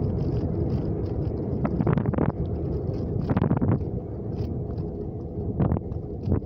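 A car driving along a road, heard from inside: a steady low rumble of engine and tyres with wind buffeting the microphone, and a few irregular short knocks or rattles.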